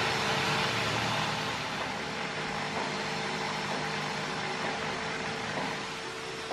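A machine running steadily: an even hiss with a faint steady hum, easing slightly after about two seconds.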